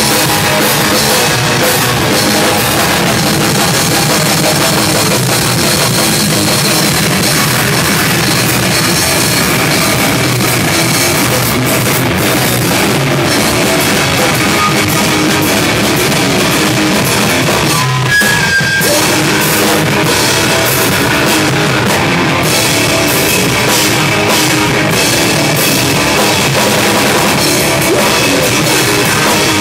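A live rock band playing loud: a full drum kit with cymbals and an electric guitar through an amplifier, dense and steady, with a brief break in the low end about eighteen seconds in.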